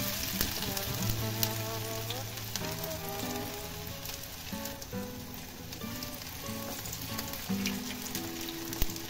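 Chapli kebab patties sizzling steadily as they shallow-fry in hot oil, with scattered small pops. Soft background music runs underneath.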